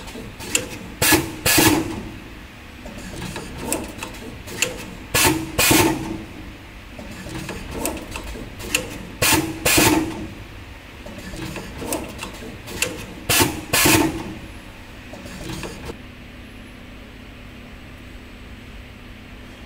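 Automatic wire cut, strip and tinning machine cycling: sharp mechanical clacks, loudest in pairs about half a second apart, repeating about every four seconds with lighter clicks between. The strokes stop about three-quarters of the way through, leaving a steady low hum.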